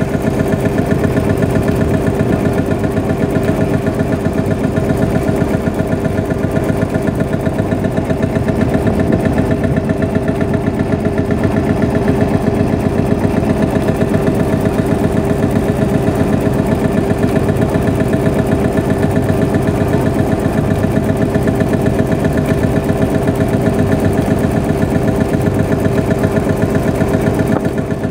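Vintage tractor engine running steadily with a fast, even beat, not working under load.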